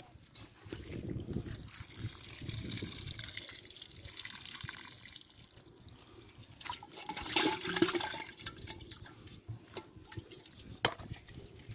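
Muddy water and live catfish sloshing in a plastic basin as hands work through it, then water and fish poured from the basin into a metal pot, loudest about seven to eight seconds in. A single sharp knock near the end.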